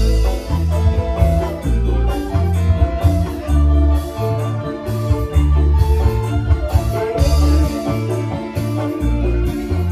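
Live dangdut band playing an instrumental through a large PA sound system: electric guitars and drums over a heavy, pulsing bass.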